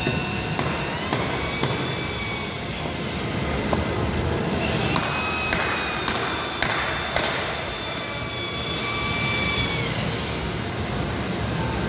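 Power drill held against the floor, driving fasteners into the metal strips of a bumper-car floor. Its motor whine falls as it slows and rises again as it speeds up, twice over, with a few short bursts of noise as it bites.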